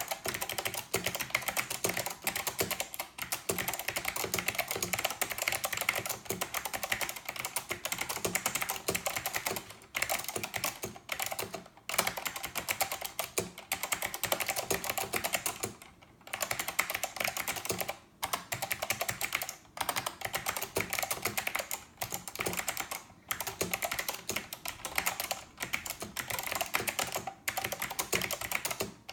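Steady fast typing on a Northgate Omnikey 102 mechanical keyboard with clicky Alps SKCM Blue switches: a dense stream of key clicks, broken by short pauses every few seconds.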